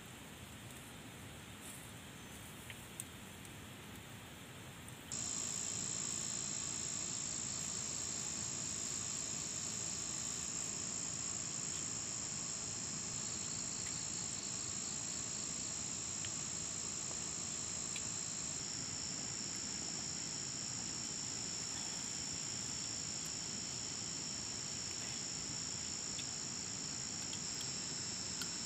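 Steady, high-pitched insect chorus, starting suddenly about five seconds in after a quieter outdoor background.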